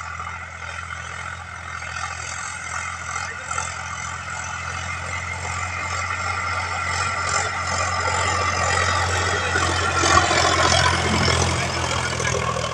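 Sonalika Sikander RX DLX tractor's diesel engine running steadily as it pulls a rotavator through dry soil, the tilling blades churning the earth. It grows louder as it approaches and is loudest about ten seconds in.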